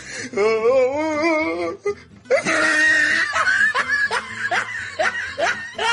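Laughter over music: a wavering, warbling held tone for the first second and a half, then a long run of quick rising laughs.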